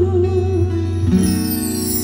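Live song with guitar played through a PA speaker: a held, wavering sung note ends about a second in, and the guitar chords carry on.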